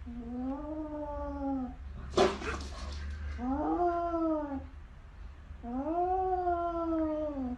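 A cat yowling: three long, drawn-out calls, each rising and then falling in pitch. A short harsh burst of noise comes between the first and second calls.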